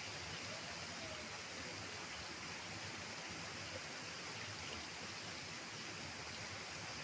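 Steady outdoor background hiss with no distinct events, level and unchanging throughout.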